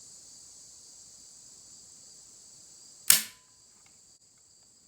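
A single sharp click about three seconds in as the CVA Paramount muzzleloader's trigger breaks under a trigger pull gauge, dry-firing with no charge. Steady high cricket chirring runs underneath.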